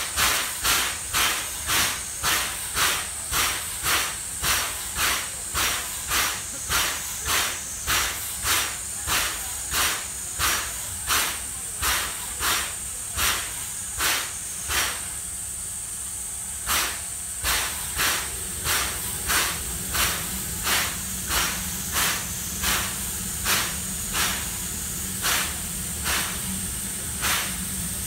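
Standing C11 steam locomotive with its steam-driven air compressor pumping in a steady beat of a little under two strokes a second, pausing for about two seconds midway, over a constant hiss of steam.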